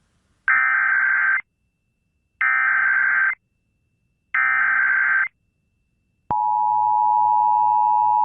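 Emergency Alert System header and attention signal: three short bursts of digital data tones (the SAME header), each about a second long and a second apart, then the steady two-tone attention signal starts about six seconds in. Together they mark the start of an emergency alert broadcast.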